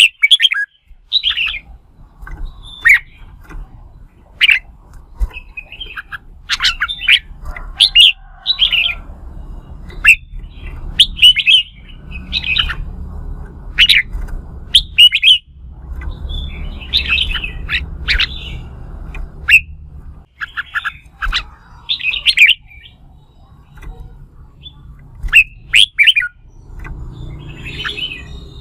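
Red-whiskered bulbul in competitive 'fighting' song: loud, short whistled phrases repeated about every second. A low rumble runs underneath through the middle part.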